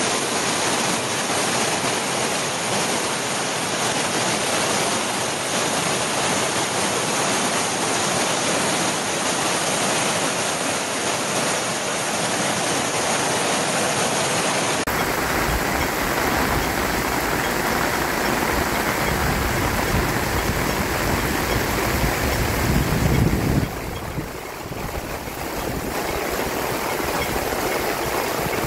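Floodwater rushing along streets in torrential rain: a loud, steady rush of water. It changes abruptly about halfway through and again near the end.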